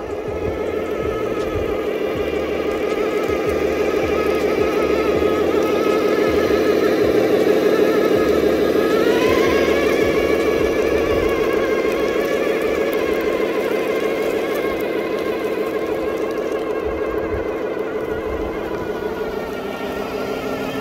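Steady high-pitched whine of a radio-controlled scale truck's electric motor and gearbox driving, rising in pitch about nine seconds in as it speeds up.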